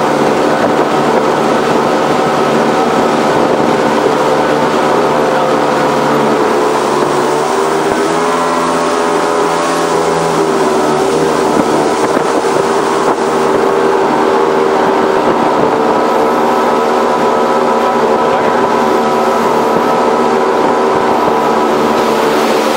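200 hp Mercury Optimax inboard jet boat engine running steadily while the boat is under way, over an even hiss. Its pitch sags briefly about eight seconds in and then comes back up.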